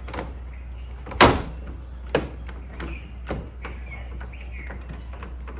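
Plastic engine-bay cover parts on a Porsche 911 knocking and clicking as they are pushed into place: four sharp knocks, the loudest a little over a second in.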